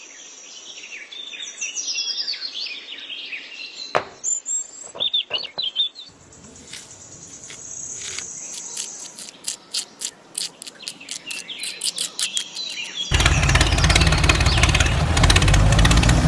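Small birds chirping, then a quick run of sharp clicks and ticks as gravel is scraped and tipped from a toy trailer with a tiny shovel. About thirteen seconds in, a loud, dense sound cuts in abruptly.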